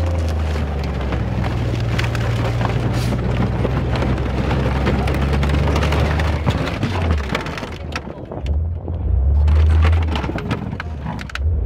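A tank's engine runs with a deep, steady drone while its tracks crush a small panel van, giving a continuous crackle of crunching, cracking metal and body panels. The engine drone drops away a little over halfway through, then surges back loudly twice near the end.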